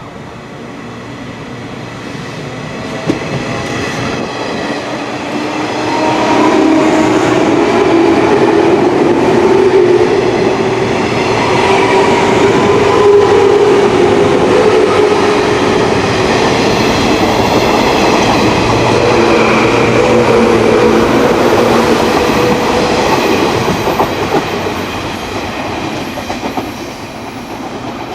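Train passing close by. Its running noise builds over the first several seconds, stays loud through the middle, and eases off near the end, with a steady droning tone running through it.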